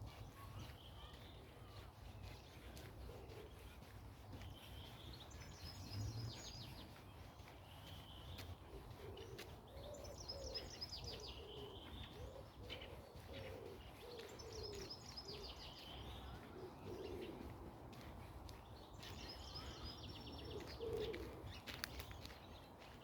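Forest birds singing: one bird repeats a short high phrase about every five seconds, while low cooing notes come in a run through the middle and again near the end, over a steady low rumble.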